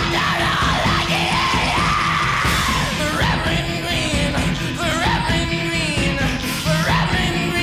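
Indie rock song: a male singer screaming and yelling in long, wavering, pitch-bending cries over a dense band backing with sustained chords and a steady beat.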